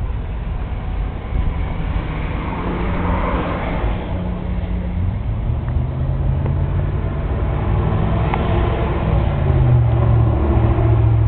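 A motor vehicle's engine running steadily with a low hum, growing a little louder in the second half.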